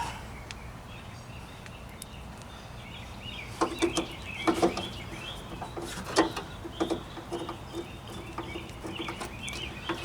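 Small metal clicks and taps from a hand tool starting the little latch screws on a Jeep Wrangler YJ tailgate, loudest in a cluster about four seconds in and again near six seconds. Scattered faint high chirps run underneath.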